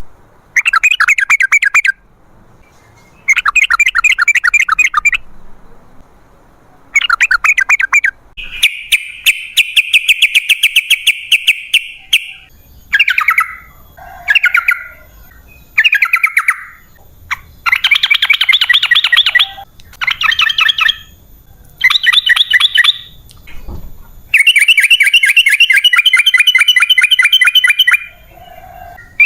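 Yellow-vented bulbul (trucukan) song: bubbly, rapid trilled phrases repeated one after another with short pauses, including two long drawn-out trills of about four seconds.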